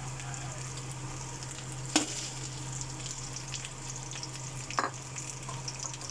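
Bagoong shrimp paste and fried pork pieces sizzling in hot oil in a metal wok while a metal spatula stirs them, at the stage where the pork goes into the sautéed shrimp paste. Two sharp knocks stand out, about two seconds in and near five seconds.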